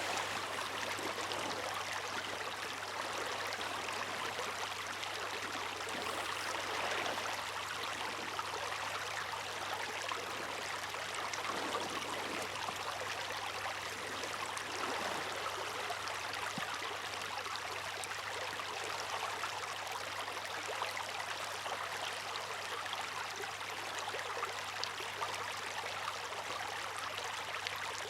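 Seawater rushing and splashing steadily, with slight swells every few seconds.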